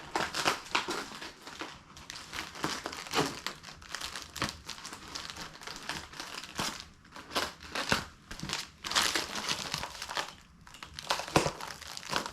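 Packaging for a motorcycle windscreen being pulled open and handled, with irregular crinkling and rustling throughout.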